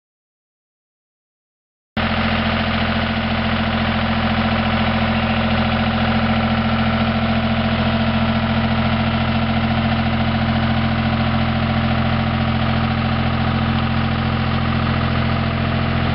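Dead silence for about two seconds, then a tractor engine running steadily at low, constant speed, pulling a transplanter slowly through tilled soil.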